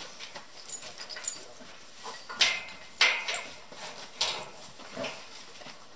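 Cattle moving about in a barn stall as they are handled: scattered knocks and shuffles, loudest about two and a half and three seconds in.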